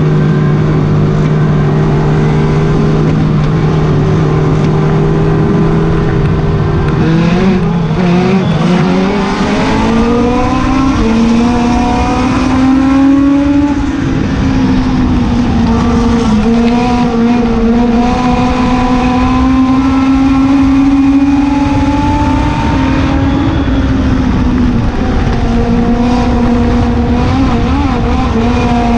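Legend race car's four-cylinder Yamaha motorcycle engine, heard from inside the cockpit. It holds a steady low speed for about seven seconds, then climbs in pitch as the car accelerates and keeps running at high revs with brief dips.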